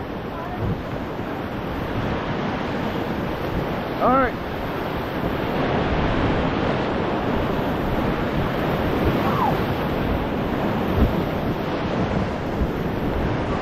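Whitewater rapids of the Menominee River rushing and churning around a raft, a steady rushing noise that grows louder over the first few seconds, with wind buffeting the microphone. A rafter's brief shout about four seconds in.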